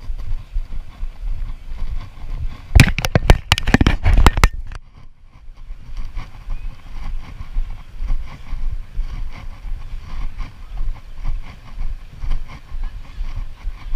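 Low rumbling wind noise on the microphone, with a quick run of sharp clicks or knocks about three to four seconds in.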